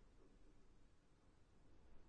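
Near silence: faint room tone with a low, steady hush of wind.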